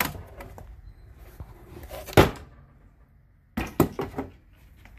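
Stove cover being lifted off a cooktop and handled: one loud knock about two seconds in, then a quick cluster of knocks and clatters a little later.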